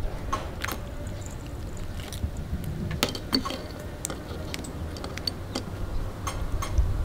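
Light, irregular clicks and taps from hands handling a raw mantis shrimp's shell and pressing a grainy seasoned filling into it, over a low steady rumble.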